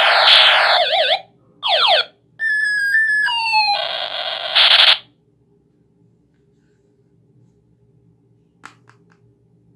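Battery-powered toy ray gun playing its electronic firing effects: a harsh warbling blast, falling zaps, a stepped run of descending beeps, then a buzzing tone that cuts off about five seconds in. After that, only a few faint plastic clicks as the toy is handled.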